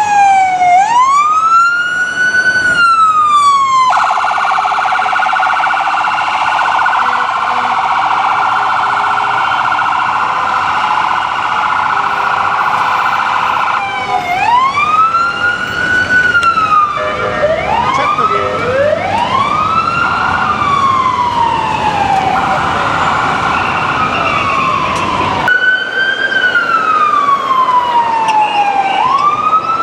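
Electronic emergency-vehicle sirens on responding ambulances. Mostly a slow wail rising and falling over a few seconds. From about 4 to 14 s it changes to a rapid, steady-pitched siren tone with no slow sweep. Later two wails overlap out of step, and the sound changes abruptly at the clip cuts.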